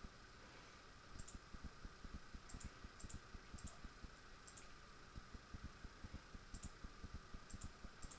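Faint calculator keys being pressed: scattered sharp clicks, some single and some in quick pairs or threes, with pauses between as a sum is keyed in.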